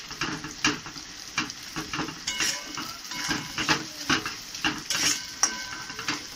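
Chopped onion sizzling in hot oil in a kadai while a spatula stirs it, scraping and knocking against the pan about two to three times a second.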